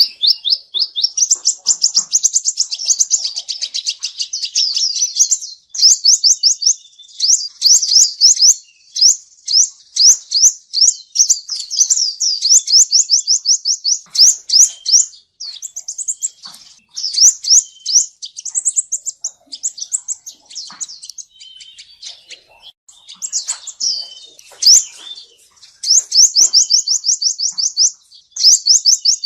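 Male seven-colour sunbird singing: rapid, high-pitched trills of quick sweeping notes, delivered in runs of a few seconds with short gaps between them. This is the male's call used to lure sunbirds into a trap.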